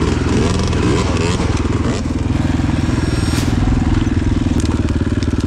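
Dirt bike engine running at a steady speed, its exhaust pulsing evenly.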